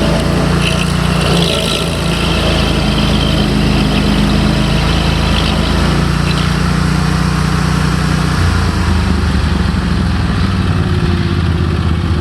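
Rayco RG37 stump grinder's engine running steadily, its speed dropping about eight seconds in.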